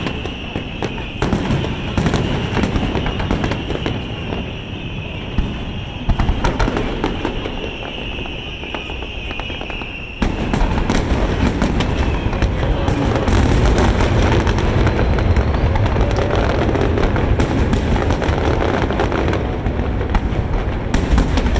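Fireworks display: aerial shells bursting in quick succession, a continuous mix of booms and crackling. About ten seconds in, it abruptly turns louder and denser.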